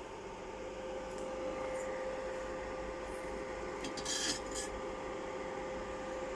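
Steady machine hum under a few brief metallic scrapes and clinks, the loudest cluster about four seconds in.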